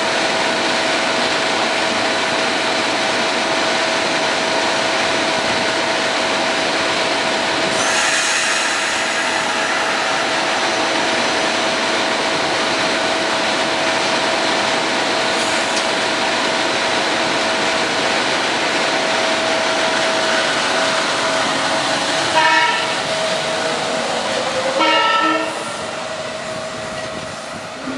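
SEPTA Regional Rail electric train running through the station: a loud, steady rail and wheel noise with a steady whine. Near the end come two short horn blasts, after which the noise fades.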